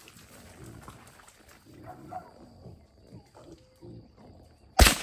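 Wild hogs grunting, then a single sharp .22 long rifle shot near the end, by far the loudest sound, with a short echo after it.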